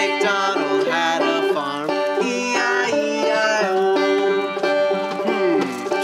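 Banjo strummed with voices singing along.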